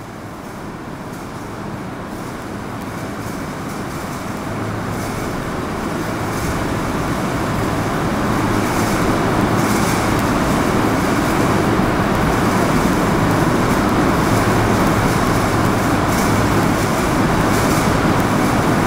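Steady rumbling background noise that grows louder over the first eight seconds or so and then holds, with faint scratches of a marker drawing on a whiteboard.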